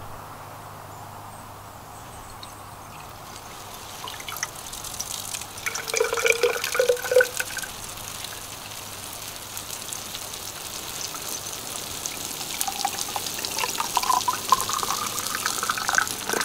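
Water pouring from a metal watering can into a glass rain-gauge tube, splashing and spilling over it. The pour starts about four seconds in and grows louder toward the end, with a few louder splashes about six seconds in.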